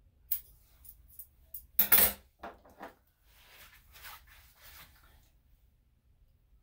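Metal grooming scissors put down onto the hard table with a loud metallic clatter and brief ring about two seconds in, after a few small snips and clicks. Then soft handling and rustling.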